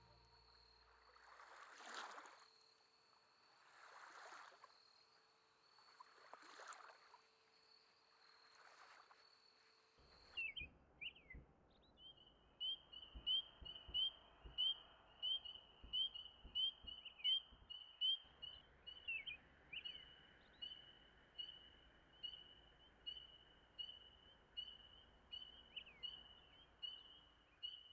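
For the first ten seconds, soft swells come about every two seconds over a faint steady high tone. Then frogs call at dusk in a chorus of high, evenly repeated peeps, about one and a half a second.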